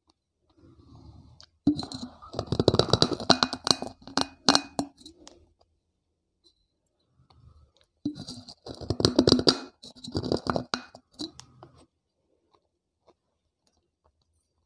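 Teeth biting and crunching a wet terracotta clay piggy bank (gullak): two bouts of dense, gritty crunching, one about two seconds in and another about eight seconds in, each lasting around three to four seconds.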